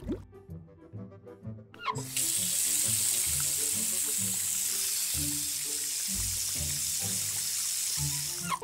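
Running tap water, a steady hiss that starts about two seconds in and cuts off abruptly near the end, over background music.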